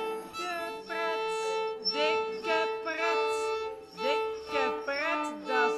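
Violin being bowed: one steady note held for nearly five seconds, breaking off near the end, with other sliding, shifting notes sounding over it.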